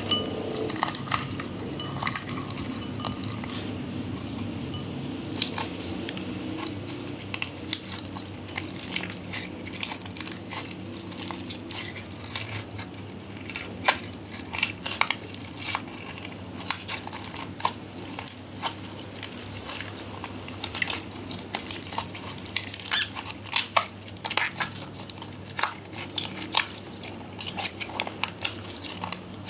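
Slime being mixed and pressed by hand: a steady run of small sticky clicks and pops, growing denser about halfway through.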